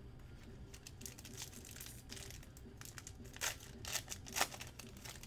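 Plastic trading-card pack wrapper crinkling and tearing as it is opened by hand: a run of irregular crackles, loudest near the end.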